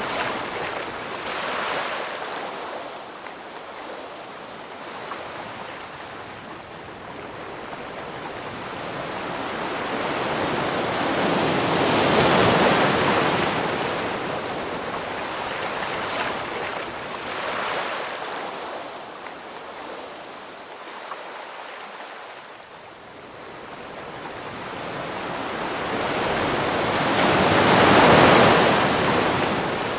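Ocean waves breaking and washing up the shore, rising and falling in slow surges, with two big swells about 12 and 28 seconds in.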